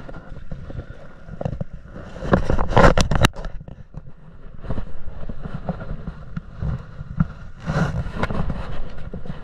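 Wind buffeting the microphone with a steady low rumble, and two louder bursts of rustling noise, the first ending in a couple of sharp clicks.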